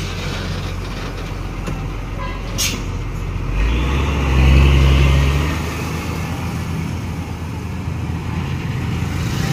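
Diesel engine of a heavy crane-equipped flatbed truck running as the truck drives past. It grows louder about three and a half seconds in, as the truck pulls away under load, then eases off again. A brief sharp click comes about two and a half seconds in.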